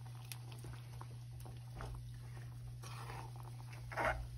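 Metal spoon stirring wet chicken curry in a nonstick frying pan: faint scraping and stirring sounds, with one brief louder sound about four seconds in, over a steady low hum.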